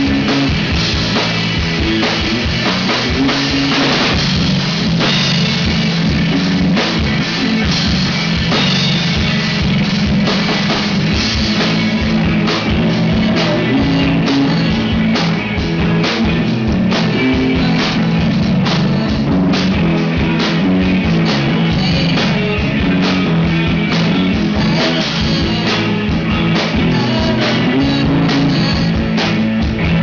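A live rock band playing: a drum kit keeping a steady beat under electric bass and electric guitar.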